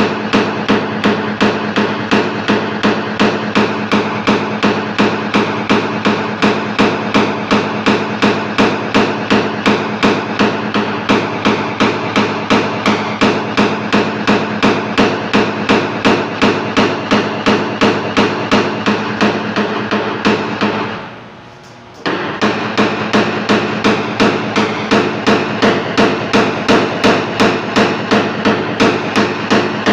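Small hammer tapping a steel knockdown pin against a car body panel in paintless dent repair, about three light, even strikes a second, knocking down high spots to level the metal's finish. The tapping briefly stops about two-thirds through, then picks up again.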